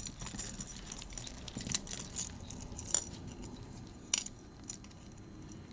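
Jewelry pieces (chains, beads, earrings) clinking and rustling as they are handled and sorted, with scattered small clicks; the sharpest come about three and four seconds in.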